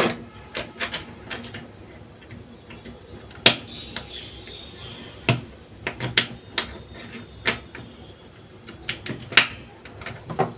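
Irregular sharp clicks and taps of a hair trimmer's small plastic parts being handled while a spring is fitted into its locking latch.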